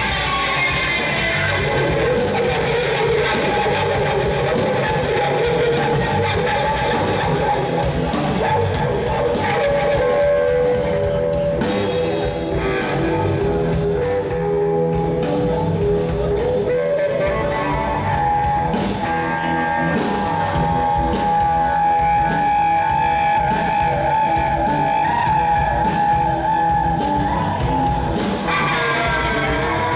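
Rock music with guitar and drums, playing steadily throughout.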